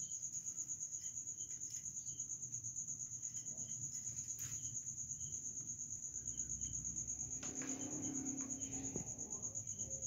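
A cricket chirping: a steady high-pitched trill that pulses several times a second.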